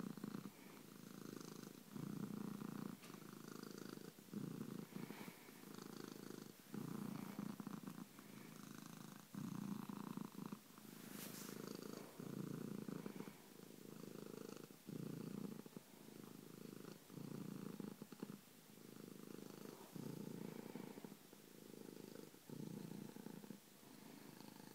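Orange tabby cat purring steadily, the purr pulsing in swells of about a second, one with each breath in and out.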